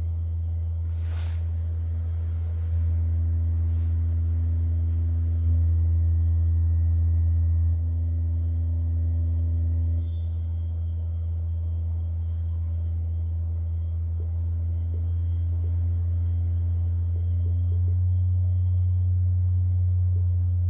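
Subwoofer playing a deep steady tone, like a low sine-wave test tone, that shakes the water on its cone into ripple patterns. The tone steps louder and softer a few times, and a brief click comes about a second in.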